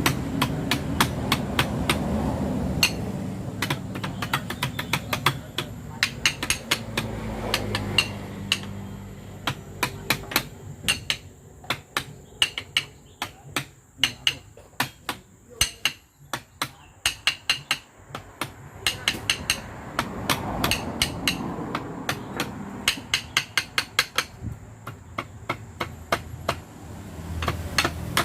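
Hammer striking metal parts of a bulldozer transmission during assembly: sharp, ringing taps, often several a second, in irregular runs with short pauses.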